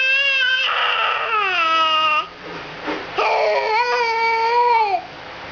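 A baby making weird, dog-like vocal sounds: two long, high wails held on one pitch. The first slides down and stops about two seconds in, and the second starts about a second later and ends near the end.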